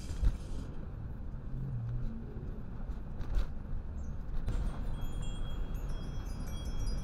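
Steady low road and engine rumble heard inside a vehicle moving slowly in traffic, with a sharp thump just after the start. From a little past halfway, a run of faint, high tinkling tones joins it.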